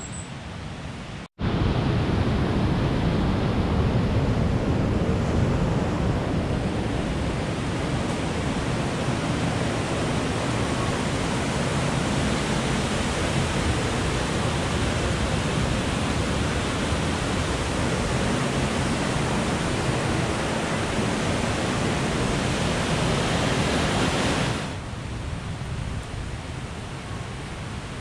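Rushing water of a river pouring over a rocky falls and rapids, a steady full rush that starts abruptly about a second in and drops away to a quieter outdoor hiss near the end.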